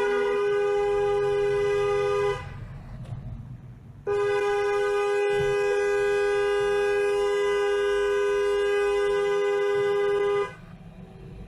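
Two-note car horn held down in two long blasts: one for about two seconds, then, after a short break, one for about six seconds. It is an angry, sustained honk of protest at a driver cutting into the lane.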